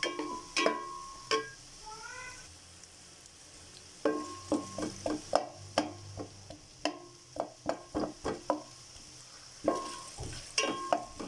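A spatula scrapes and knocks against a metal pot, stirring sliced onions frying in oil, over a steady sizzle. The strokes come in bunches, and the pot rings briefly after the sharper hits. There is a pause about two seconds in, with a few short rising chirps.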